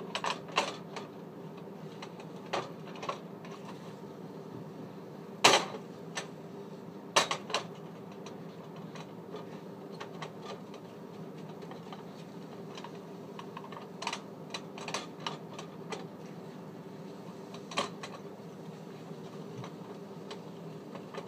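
Spatula tapping and scraping in a nonstick frying pan as omelet eggs are pushed around: scattered clicks and knocks in small clusters, the loudest about five and a half seconds in. A steady low hum runs underneath.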